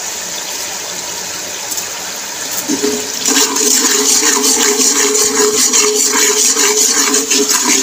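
Fried onions and crushed red chilli sizzling in hot oil in an aluminium pot while a slotted spoon stirs and scrapes them. About three seconds in the sizzle grows louder and a steady hum joins it.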